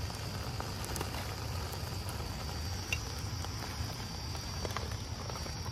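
Outdoor background: a steady low rumble like wind on the microphone under a steady high-pitched hiss, with a few faint light clicks.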